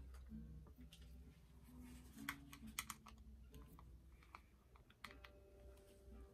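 Faint, scattered clicks and taps of a small hard-plastic doll stand being handled and its pieces fitted together, with a cluster of clicks about two to three seconds in and a few more about five seconds in.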